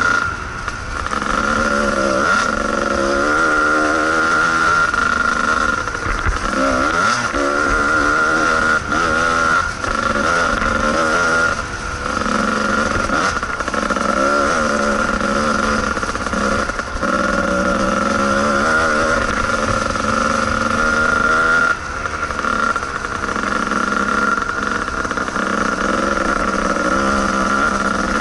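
Kawasaki KDX220 two-stroke single-cylinder dirt bike engine under way on a trail, its pitch rising and falling constantly as the throttle is worked. There are brief drops when the throttle is shut, just after the start, about 12 seconds in and again about 22 seconds in.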